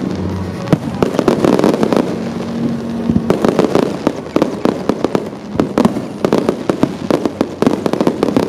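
Aerial fireworks bursting in rapid succession: a dense run of sharp bangs and crackles that does not let up.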